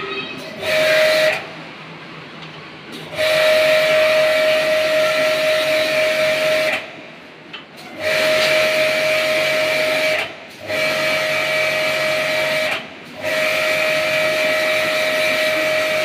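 Pressure washer spray gun jetting water into an air conditioner's indoor unit in five bursts, the first brief and the rest several seconds long, as the trigger is squeezed and released. Each burst is a steady whine from the pump over hissing spray.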